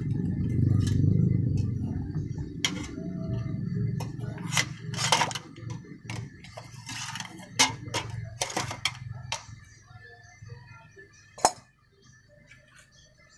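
Small metal pieces clinking against each other and against a stainless steel cup as they are handled and lifted out of liquid, in scattered sharp clinks with one sharper one near the end. A low droning hum runs under the first half and dies away.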